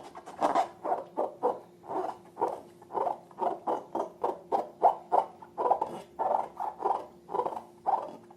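Slime being squished and worked by hand, a quick run of short squishes, about two or three a second.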